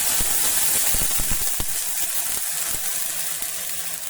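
Water poured into a kadhai of hot ghee tempered with cumin and spices, hissing and sizzling. It crackles for the first second or so, then fades into a dying hiss.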